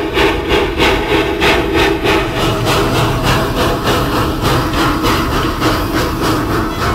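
Wood-fired narrow-gauge steam locomotive working, its exhaust chuffing in a quick, even beat of about four a second. The beats blur into a steadier rush of steam and running noise about halfway through.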